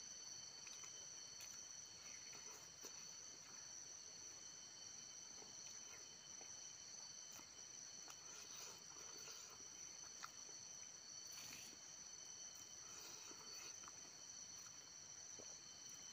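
Faint, steady high-pitched insect chirring, with scattered soft clicks of a person eating by hand: chewing and lip smacks.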